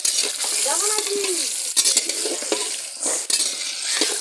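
Potatoes sizzling as they fry in hot oil in a large kadai (wok), stirred with a metal spatula after turmeric has been added. There are sharp knocks of the spatula against the pan, the loudest a little under two seconds in and another around three seconds.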